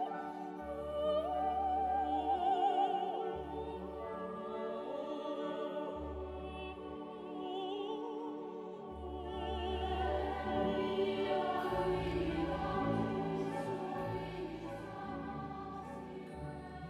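Background music: operatic singing with a wide vibrato over an orchestral accompaniment with held low bass notes.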